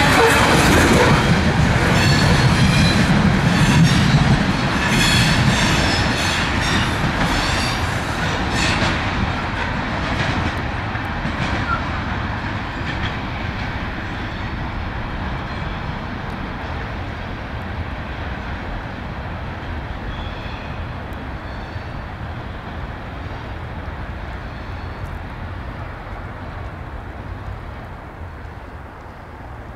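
CSX coal train's open-top coal cars rolling past, their wheels clicking over rail joints with brief high squeals in the first several seconds. The rumble then dulls and fades steadily as the train moves away.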